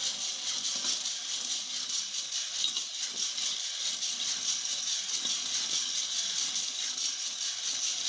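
Coffee beans tumbling and rattling inside the turning stainless-steel drum of a small gas-fired drum coffee roaster during a roast, over a steady hiss.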